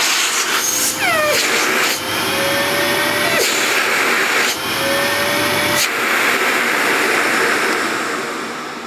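Sebo C3 Power cylinder vacuum cleaner running with its hose being blocked and unblocked by hand to test the bag-full indicator. The airflow note changes with each block, with sharp clicks, a falling whistle about a second in, and steadier whistling tones in between. The motor sound fades away near the end.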